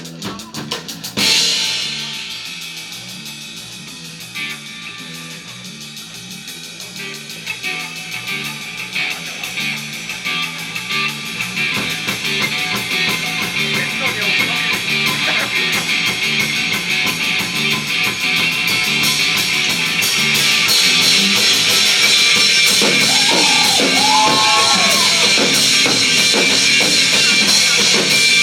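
Live rock band playing an instrumental passage with drums, bass and electric guitars: a cymbal crash about a second in, then a steady bass line and drums building gradually louder as the cymbals fill in. Near the end a high lead part glides up and down in pitch.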